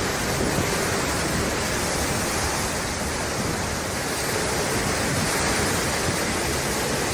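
A steady, even rushing noise at a constant level, with no separate impacts or other distinct events.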